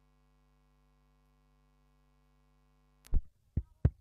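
A faint steady hum for about three seconds, then three sharp clicks or knocks in quick succession, the first the loudest.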